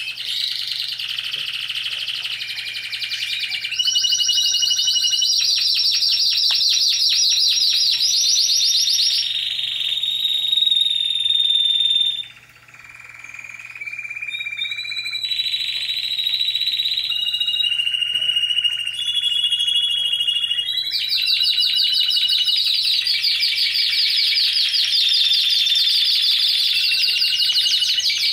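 Timbrado Español canary singing a long song of changing phrases: fast trills of rapidly repeated notes alternating with held, steady whistled notes, with a brief lull about twelve seconds in.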